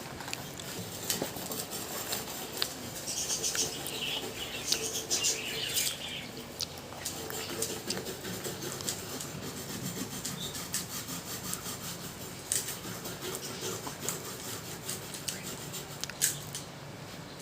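Hand work on a gas cooking stove's burner: scraping and rubbing, with many light clicks and taps of metal parts.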